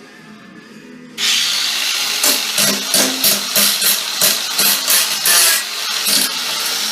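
Power grinder working the steel of a broken tire bead breaker, starting abruptly about a second in and running loud with an uneven, pulsing grind as the pressure on the metal varies.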